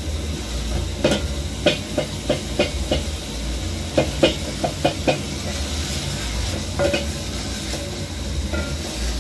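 Wooden spoon knocking and scraping against a metal cooking pot as a tomato stew is stirred: about a dozen irregular taps, mostly in the first five seconds, over a steady hiss.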